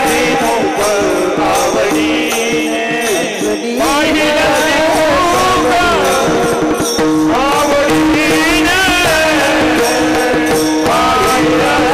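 Varkari devotional singing: a voice singing long, ornamented melodic lines over a steady held drone, with pakhawaj drum strokes and a jingling cymbal rhythm keeping time.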